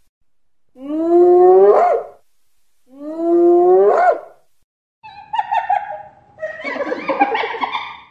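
Spotted hyena giving two whoops, each a long call rising in pitch. After a short gap comes a stretch of higher, broken, chattering calls.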